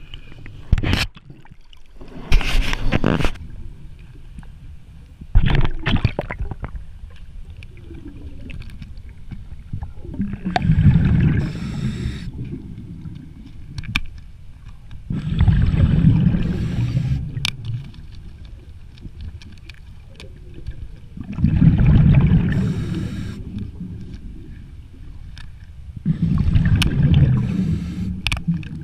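A scuba diver's exhaled bubbles rushing from the breathing regulator underwater, one burst of two to three seconds about every five to six seconds. Sharp knocks and scrapes of gear against the intake pipe come in the first few seconds.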